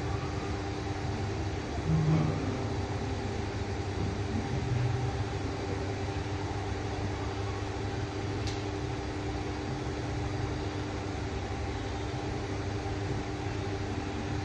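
Steady mechanical hum with a low rumble and a few faint steady tones, such as a fan, appliance or distant traffic, with brief louder low bumps about two and five seconds in.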